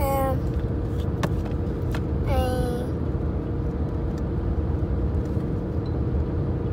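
Steady road rumble inside a moving car's cabin, with a faint steady hum. A child's voice makes two short sounds that fall in pitch, one at the very start and one about two and a half seconds in, and there are a couple of faint clicks.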